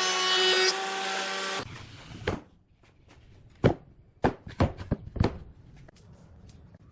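An electric power tool running steadily with a whine on wood, cutting off suddenly about a second and a half in; then about seven sharp knocks of wood being handled or tapped.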